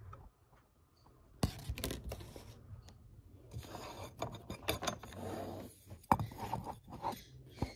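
Handling noises on a desk: a sharp click about a second and a half in, then scraping and rustling, and a few more sharp clicks near the end.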